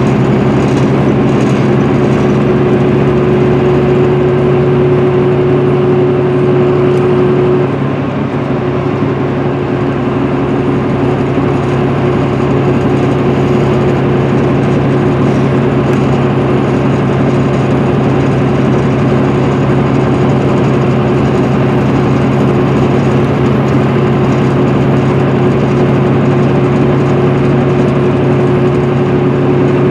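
Inside an MCI D4500CL coach cruising at highway speed: its Cummins ISM diesel drones steadily under road and tyre noise. A steady whine rides on top and eases briefly about eight seconds in before coming back.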